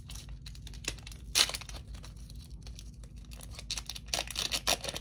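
Crinkly plastic wrapper being torn open and crumpled by hand, an irregular run of sharp crackles, loudest about a second and a half in and again in a quick cluster near the end.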